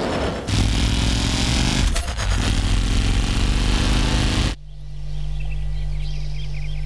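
A loud rushing rumble with a heavy low end cuts off suddenly about four and a half seconds in. After it comes a low steady drone with high short chirps over it.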